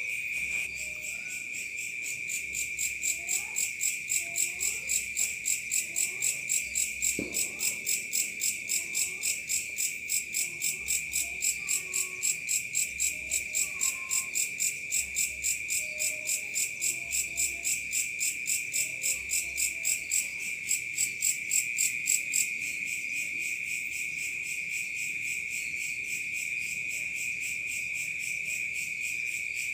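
Night insect chorus: crickets keep up a steady high trill, and from a couple of seconds in until about three-quarters of the way through another insect joins with a louder, rapid pulsed chirping, about three to four chirps a second.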